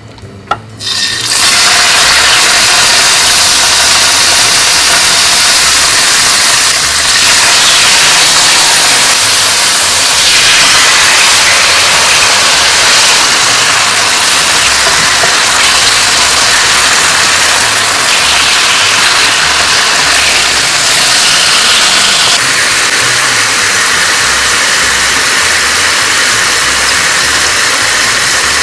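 Marinated chicken breast slices sizzling in hot oil in a non-stick frying pan, a loud steady hiss that starts suddenly about a second in as the first slices hit the pan.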